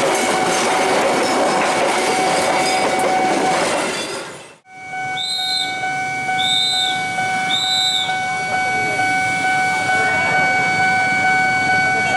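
KAI passenger coaches rushing past close by, wheels clattering over the rails. About four and a half seconds in the sound cuts off abruptly, giving way to a quieter scene with a steady high tone and three short, higher beeps about a second apart.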